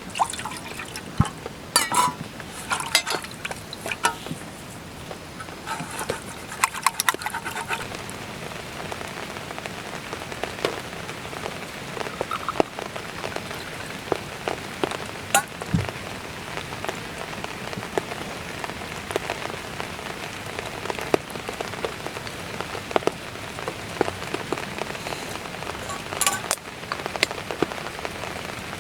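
Rain falling steadily, with many separate drops tapping close by and a few brief flurries of denser taps.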